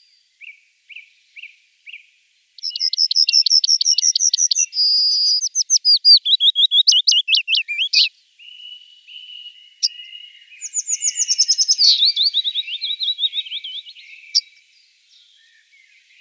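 Songbirds singing in turn: rapid runs of repeated high notes and quick trills, then near the end a song of quick notes falling in pitch.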